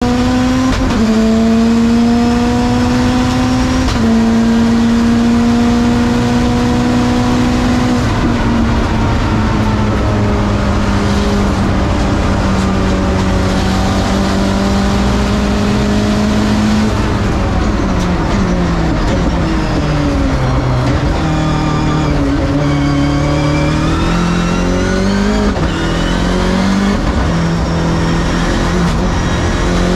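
Nissan Silvia S15 time attack car's engine heard from inside the cabin at speed on track: revs held high with gear changes about 1, 4 and 8 seconds in, then falling for a corner just past halfway and climbing back up in steps through the gears.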